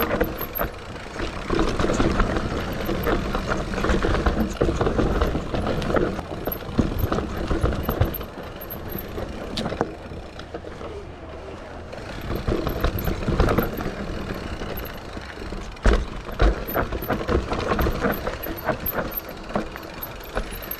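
Mountain bike running down a rough natural trail: the tyres rumble over dirt and roots, and the bike rattles and clatters over bumps. It smooths out for a moment midway, then takes a few hard knocks near the end.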